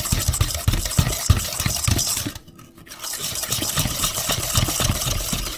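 Batter being stirred by hand in a mixing bowl: a utensil scrapes and clicks against the bowl in quick, continuous strokes, pausing briefly about halfway through before resuming.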